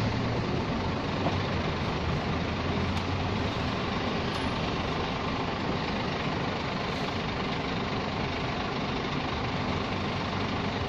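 Scania G460 truck's six-cylinder diesel running steadily at low speed, heard from inside the cab as the truck creeps forward.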